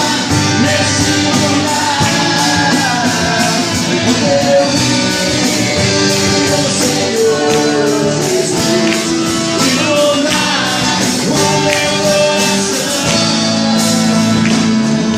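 A band playing live worship music with guitar and a steady beat, with a sung or instrumental melody line over it.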